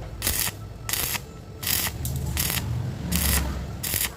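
Short scraping strokes of a hand tool on steel pipe, repeated roughly every half second at an uneven pace, over a low steady hum.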